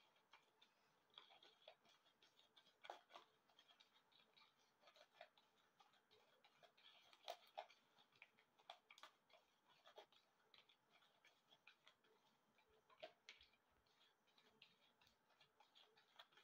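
Faint, irregular scraping and clicking of a plastic spoon stirring a gritty mix of instant coffee, sugar and olive oil in a small bowl.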